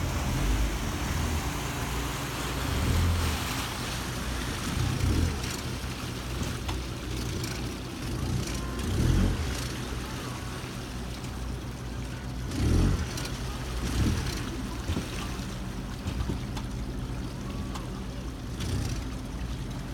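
A boat engine running steadily with a low hum, with wind gusting on the microphone several times.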